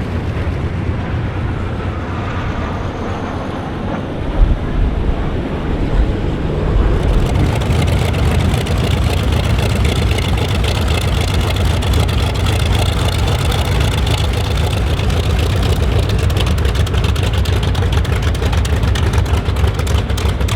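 Aircraft engine noise: a steady rush over a deep rumble that grows louder and brighter about seven seconds in as the aircraft draws nearer, with a single sharp thump a little over four seconds in.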